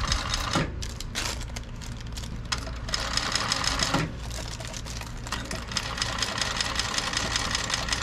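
TechSew 2750 industrial cylinder-arm sewing machine stitching a hair weft track onto a wig cap, the needle running fast and evenly in several short runs with brief stops between them. It is set to a speed of 700.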